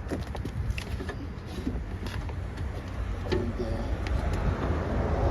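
Scattered light clicks and taps from handling parts at a car door, over a steady low rumble.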